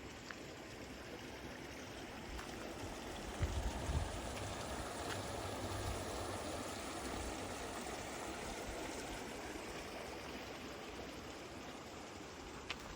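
Running water of a mountain stream rushing steadily, growing louder through the middle and easing off again, with a few low thumps of wind on the microphone about three and a half seconds in.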